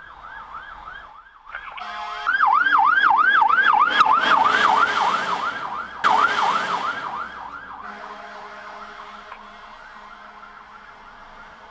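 Fire truck's electronic siren in fast yelp mode, sweeping up and down about three times a second. A short horn blast comes just before it gets loud, and the siren fades again as the truck moves on ahead.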